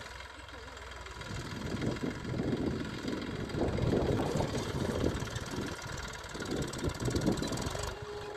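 Eicher tractor's diesel engine running while ploughing, getting louder and rougher through the middle, then easing off near the end.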